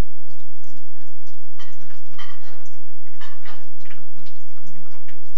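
Bathwater splashing and sloshing in a small bathtub as a toddler moves about in it, in irregular short splashes.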